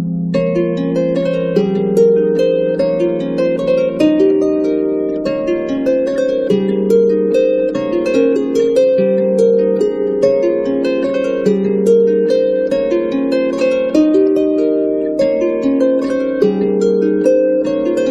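Background music of plucked harp notes, several a second, in a flowing melody.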